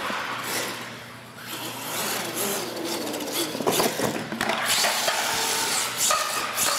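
R/C monster truck's motor whining and changing pitch as the truck drives over a concrete floor, with sharp knocks about halfway through as it hits a ramp.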